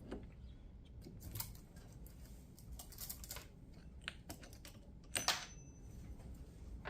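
Light clicks and taps of a chainsaw's metal and plastic parts being handled during disassembly, with a short cluster of rattling clicks about five seconds in.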